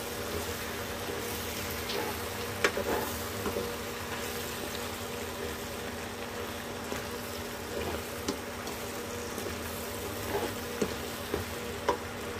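Wooden spatula stirring macaroni in a metal pan: soft scraping with scattered short clicks of the spatula against the pan, over a faint sizzle and a steady electrical hum.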